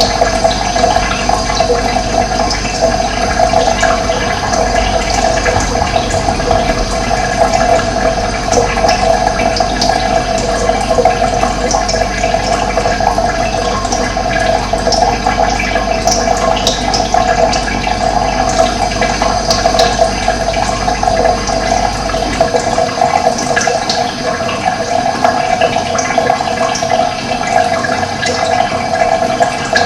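Steady rush of running water, with scattered short, high bird chirps over it.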